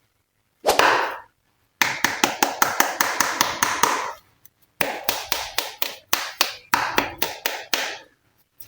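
Hands pressing and poking glossy slime, each press giving a sharp wet click or pop. There is one click about a second in, then quick runs at about five or six clicks a second.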